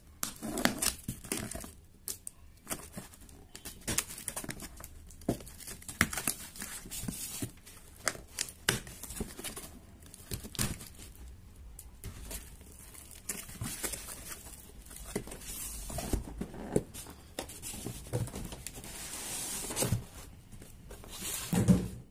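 A cardboard parcel and its packing tape being torn open by hand: irregular tearing, crackling and crinkling, with a longer tear near the end and then a thump.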